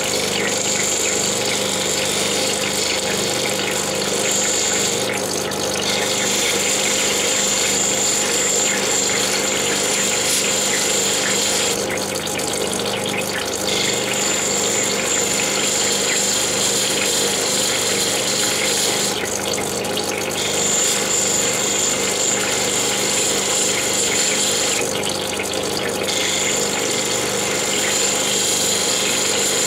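Diamond Pacific Genie cabochon machine running wet: a steady motor hum under the hiss of water and the opal grinding on a diamond wheel. The high hiss drops out for about a second four times while the hum runs on.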